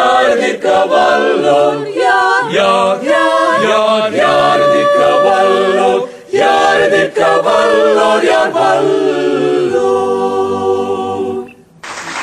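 Mixed men's and women's a cappella vocal ensemble singing a Tamil Christian song in close harmony. It closes on a long held chord that stops suddenly shortly before the end, and applause breaks out at the very end.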